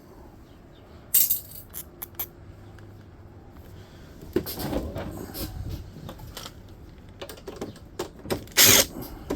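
Small metal parts clinking and clattering as they are handled and dropped during hand disassembly of a dehumidifier for scrap. There are scattered sharp clinks, with the loudest clatter near the end.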